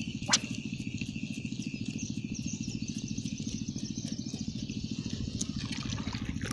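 Steady low drone of an idling motor, with a fast, even throb, under a continuous high insect buzz. A single sharp click sounds about a third of a second in.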